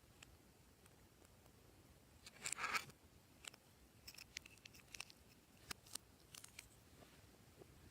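Glossy slime being handled and mixed: one short squish about two and a half seconds in, followed by scattered small clicks and pops.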